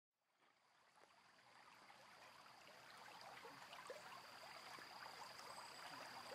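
Faint rushing of water fading up slowly out of silence.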